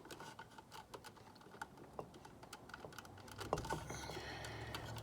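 Small clicks and taps of plastic and metal as a refrigerator compressor's relay/overload unit is worked by hand and pushed onto its terminal pins. A low steady hum comes in about three and a half seconds in.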